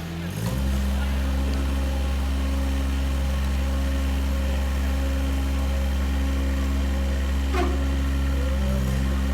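An engine picks up speed about half a second in and then runs steadily at one even pitch, with a short click late on.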